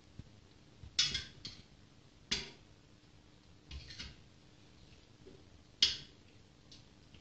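A utensil clinking and knocking against a stainless steel stockpot while pieces are fished out of the broth, about six sharp knocks a second or so apart. The loudest come about a second in and near six seconds.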